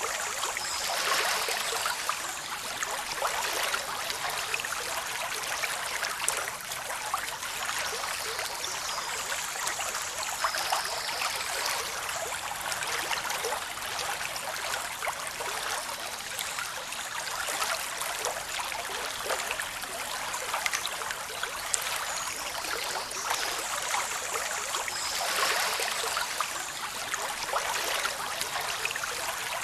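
Waterfall rushing over rocks: a steady, unbroken hiss of falling water with fine splashing crackle, bright and with little deep rumble.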